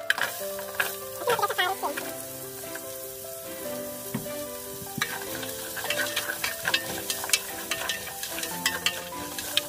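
Sliced sausage and carrot pieces sizzling as they fry in an aluminium pot, with a spatula scraping and stirring against the pot, the clicks and scrapes coming thicker from about five seconds in.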